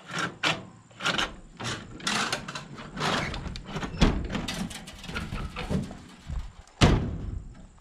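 Rear hatch of a Stutz camper shell being swung shut and its latch handled: a run of knocks, clicks and rattles, with one sharp knock near the end.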